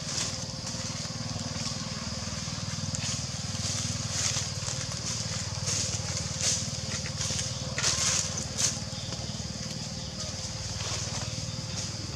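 Forest ambience: a steady high drone and a low hum throughout, with a few sharp crackles of dry leaf litter as the small macaque moves on it, clustered between about six and nine seconds in.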